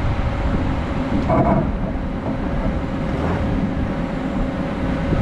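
Vehicle driving, heard as a steady low rumble with a constant hum, and a brief wavering sound about a second and a half in.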